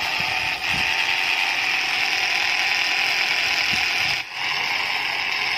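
Small electric motors of a homemade toy plane whirring steadily as they spin its four plastic propellers, with a brief drop a little after four seconds in.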